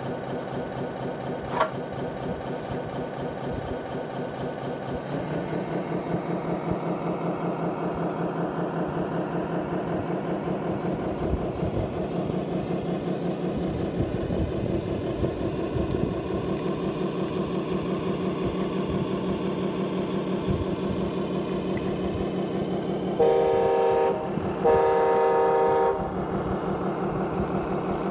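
Radio-controlled Scania R620 truck's sound module playing a diesel engine, the note stepping up in pitch and loudness about five seconds in and then running steadily. Near the end it gives two horn blasts, the second longer.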